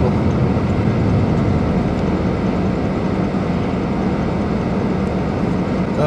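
Steady car cabin noise while driving: a low engine hum under a steady hiss of tyres on a wet road.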